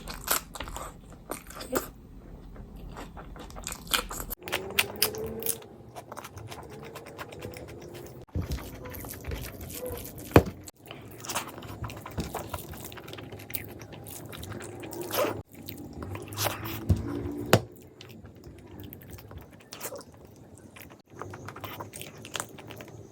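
Close-miked eating: chewing and biting with irregular wet mouth clicks and crunches, broken by a few abrupt cuts.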